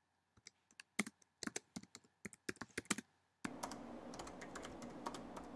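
Typing on a MacBook Pro laptop keyboard: quick, irregular key clicks. A steady background hiss comes in about three and a half seconds in, under the continuing clicks.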